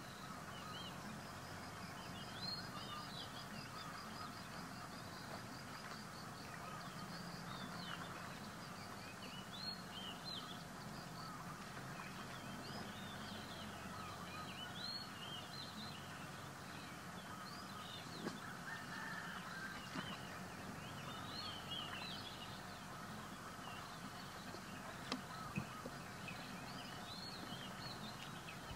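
Birds giving many short, high chirps over a steady outdoor background hiss, with a few faint clicks in the second half.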